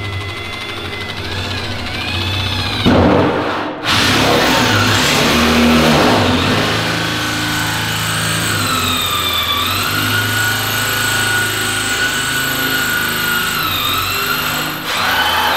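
Power drill turning a hole saw against the top of a steel fuel tank. Its whine rises and falls in pitch as the load changes, cuts out briefly about four seconds in, then starts again louder.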